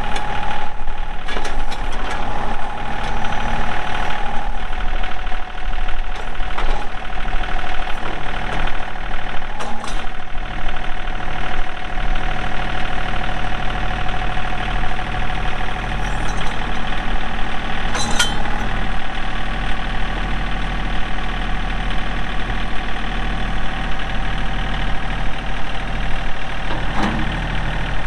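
John Deere 2032R compact tractor's three-cylinder diesel engine running steadily, with a steady whine over it and a few short clunks.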